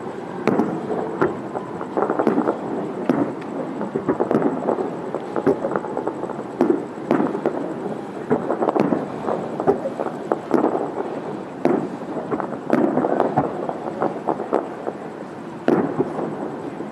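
Fireworks display: aerial shells bursting one after another, a continuous stream of booms and crackling reports with no pause.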